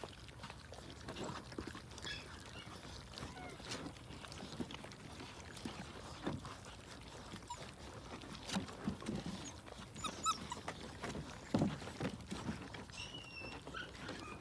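A litter of six-week-old puppies eating together: many small irregular clicks and smacks of chewing and lapping, with a few short high-pitched puppy squeaks in the second half.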